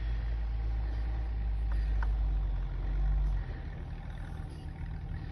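Off-road pickup's engine running under load as it pushes through deep snow; the low rumble drops off about three and a half seconds in.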